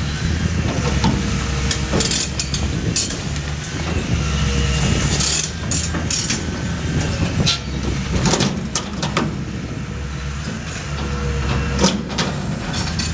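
Demolition excavator's diesel engine running steadily under load while the Indeco ISS 10/20 hydraulic jaws crunch into the rim of a rusted tank, with repeated sharp cracks and snaps of breaking material.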